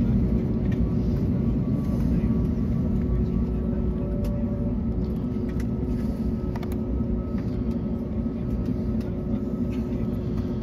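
Airbus A321neo cabin noise while taxiing: the engines run steadily at low power with a steady hum and a faint whine, and a few light clicks come through the airframe.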